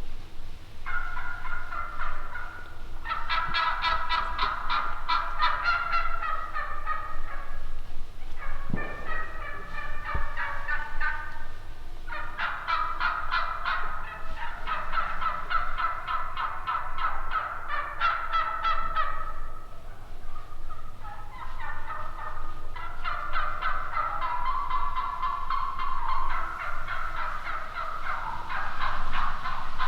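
Several turkeys gobbling, with rapid rattling gobbles overlapping one another almost without pause and a few short breaks.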